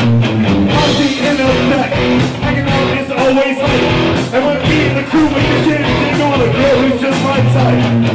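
Live rock band playing a cover of a rap song, with a man rapping into a handheld microphone over it, loud through the PA.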